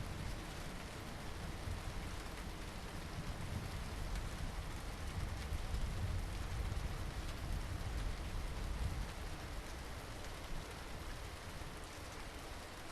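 Low rolling thunder rumble over steady rain, swelling about halfway through and easing off again.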